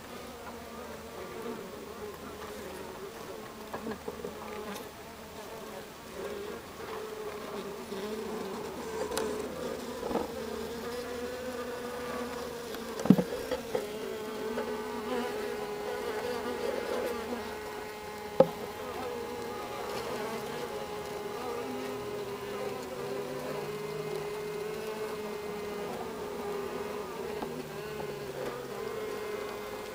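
A honeybee colony humming inside the hive: a steady buzz of many bees close to the microphone, holding one pitch with slight wavering. Two sharp knocks cut through it near the middle, about five seconds apart.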